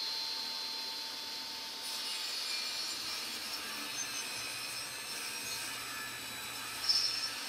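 Table saw ripping a 2x4 lengthwise. The saw's steady whine gives way to an even cutting noise about two seconds in as the blade bites into the board, with one brief sharper sound near the end.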